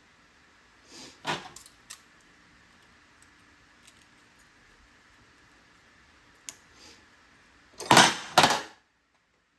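Metal hand tools clinking against metal: a few light clicks, then two loud metallic clatters close together near the end.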